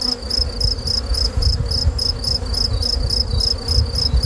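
Honeybees humming around an open hive, under a high, even chirp that repeats about three times a second and a low rumble.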